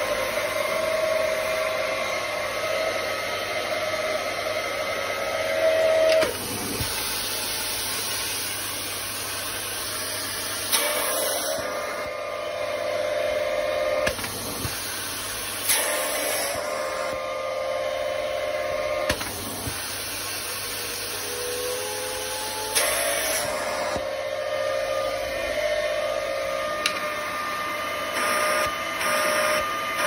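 Dyson canister vacuum cleaner running: a steady rushing hum with a whistling tone that shifts in pitch several times as the floor head is worked over the floor and a sheet of paper. A few short knocks come from the floor head and wand being handled.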